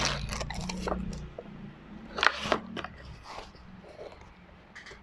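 Plastic bag crinkling and rustling as a pistol is handled and packed, with a few sharp crackles at the start and a couple of louder clicks a little over two seconds in.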